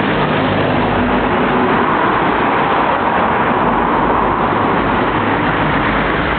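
Road traffic passing close by a bus stop: a steady rush of tyre and engine noise that swells in the middle and eases off near the end.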